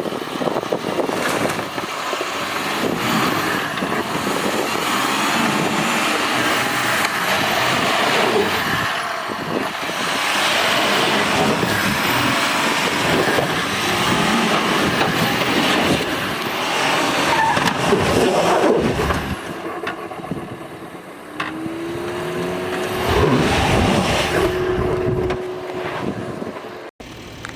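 A 2011 Volkswagen Touareg TDI's diesel engine running under load as the SUV drives off-road, with tyre and body noise. Later on, a steady whine rises and holds for a few seconds before the sound drops away near the end.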